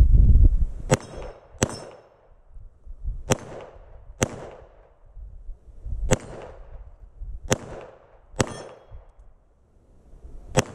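Glock 34 Gen 3 9mm pistol fired eight times at an uneven pace, about a second apart, each shot followed by a short metallic ring from the steel plate targets. A low rumble sounds in the first half-second.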